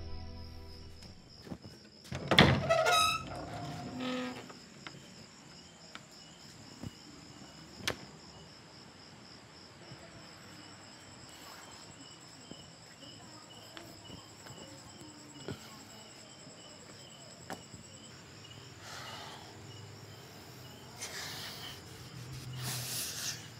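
Crickets chirping steadily in a night insect chorus. About two seconds in, a wooden door creaks and knocks open, the loudest sound, with a few softer shuffling noises near the end.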